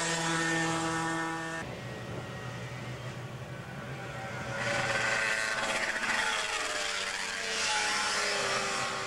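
Sport motorcycles going past at speed through a bend. A steady engine note cuts off about a second and a half in, then two more bikes come up loud and fade away, each engine note falling in pitch as it passes.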